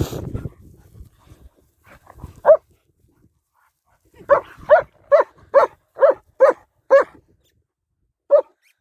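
A dog barking: a single bark, then a quick run of seven barks at about two a second, and one more bark near the end. A brief low rumble, like wind or handling on the microphone, at the very start.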